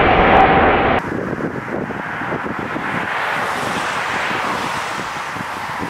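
An Airbus A380's jet engines running with a steady whine, cut off abruptly about a second in. Then wind buffets the microphone over the distant rush of a four-engine Airbus A340 on the runway.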